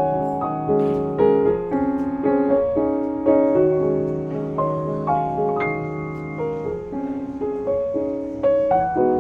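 Background piano music: a gentle melody over sustained chords, with notes struck about every half second.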